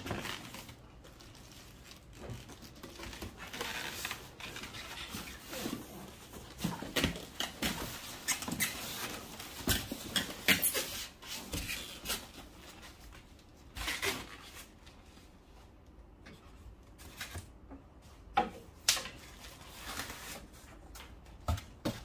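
Cardboard box and styrofoam packing being handled: irregular scraping and rustling of cardboard, foam and plastic wrap, with several sharp knocks and bumps along the way.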